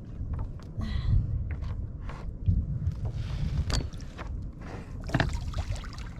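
Water sloshing and splashing around a kayak on the ocean, over a steady rumble of wind on the microphone, with a few short splashy hisses and scattered small knocks.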